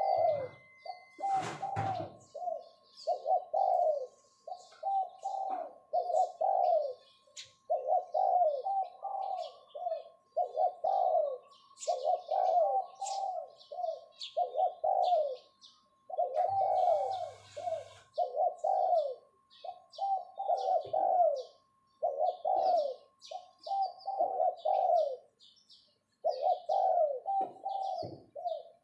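Spotted dove decoy bird giving its 'phao phao' summoning call: short low coos delivered in quick runs, over and over, used to call in wild doves. Small birds chirp faintly in the background.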